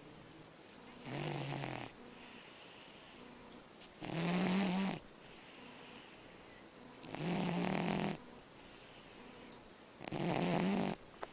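Dog snoring: four loud snores about three seconds apart, each about a second long, with quieter breaths between them.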